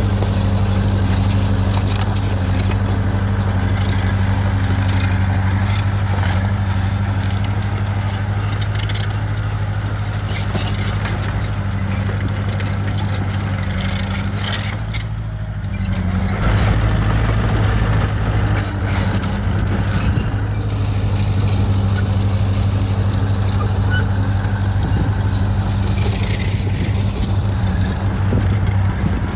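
Bulldozer's diesel engine running steadily, with a low hum and scattered metallic clinks and clanks. It dips briefly about halfway through, then picks up again.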